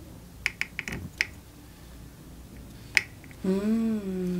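Several light, sharp clicks in quick succession, then one more click, followed near the end by a woman's closed-mouth hum, held about a second with the pitch rising slightly then settling.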